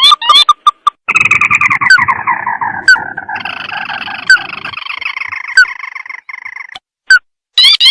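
Crake lure call (tikusan): a few short, sharp call notes, then about a second in a long chattering trill that falls in pitch and runs for several seconds, with a sharp single note every second or so. Short calls return near the end.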